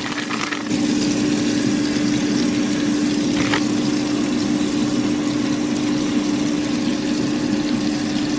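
Steady hum of a running kitchen appliance fan over the sizzle of burger patties frying in a nonstick pan.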